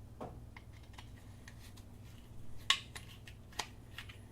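Small clicks and taps of a cheap plastic multimeter being handled and taken apart, with a sharper click about two and a half seconds in and another a second later.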